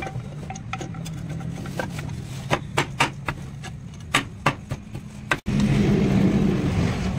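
Sharp clicks and knocks from a metal motorcycle clutch cover being pressed and seated onto the crankcase, over a steady low engine hum. The clicks come in a cluster in the middle. After a sudden break near the end the hum is louder.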